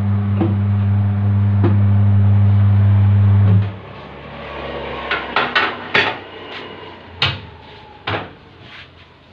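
Tyre-changing machine's electric turntable motor running with a steady hum, which stops abruptly a little under four seconds in. Several sharp metallic clanks and knocks of a tyre lever and rim follow.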